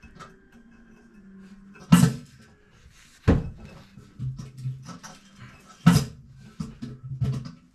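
Knocks and clatter of hands and tools at work on a toilet installation: three sharp knocks, about 2, 3.3 and 6 seconds in, among smaller clicks, with a low steady tone sounding between them.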